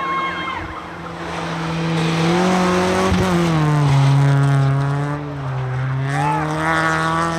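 Rally car engine revving hard as the car slides through a snowy corner. The pitch dips about three seconds in, then climbs again as it pulls away.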